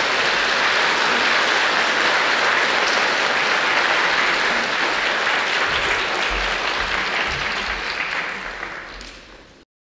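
Audience applauding steadily, then thinning out and cutting off abruptly near the end.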